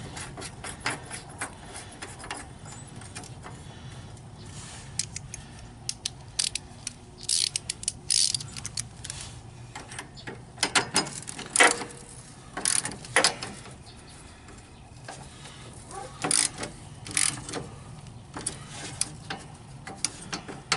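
Ratchet wrench clicking in quick runs with short pauses, tightening the deck hanger bolt on a riding mower down snug.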